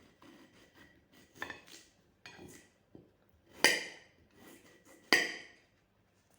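Kitchen knife and dishware knocking and clinking as a lemon is cut: a few soft knocks, then two sharp, ringing clinks about a second and a half apart.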